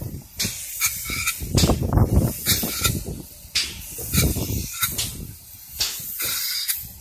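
Spray gun of a two-component polyurethane foam spray machine hissing in short, irregular bursts, over a low rumble.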